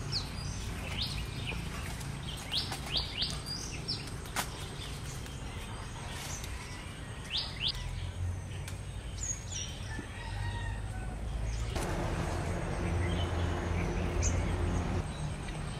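Small birds chirping in short, high, downward-sweeping calls, clustered in the first half, over a steady low rumble. A spell of soft rustling-like noise rises near the end.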